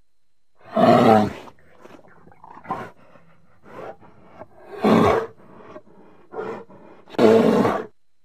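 Grizzly bear roaring three times, about a second in, about five seconds in and near the end, with short, quieter calls between the roars.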